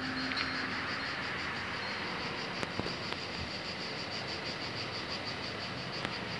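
Cicadas buzzing steadily in a high, evenly pulsing chorus. Under them, the rail noise of a train that has just passed fades away over the first couple of seconds.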